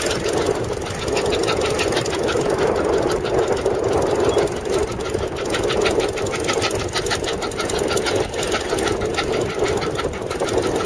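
Steam traction engine working under load pulling a plow, its exhaust chuffing in a fast, even beat of about seven a second over a steady rushing noise.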